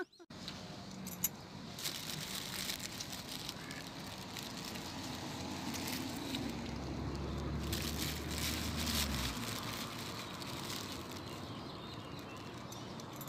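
Steady outdoor background noise with a few light clicks and rustles, and a low rumble for about three seconds in the middle.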